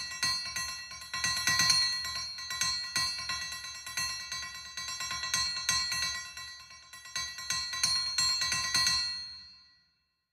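Light hammer taps on a small steel anvil block and blade, two to three strikes a second, each ringing with the same bright metallic tones. The taps fade out near the end.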